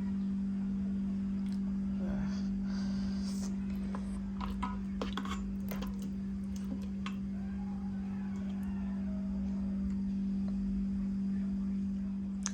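Steady low electrical hum with scattered light clicks and clinks of tableware being handled, mostly in the middle stretch.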